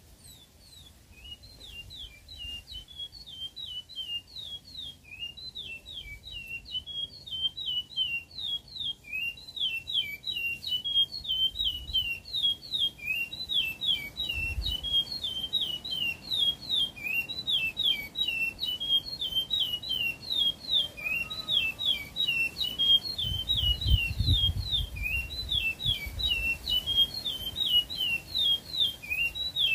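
A caged songbird singing a long, unbroken string of fast, repeated chirping phrases, growing louder over the first several seconds.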